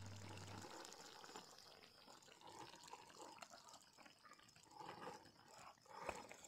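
Near silence: faint outdoor ambience, with a brief low hum at the very start.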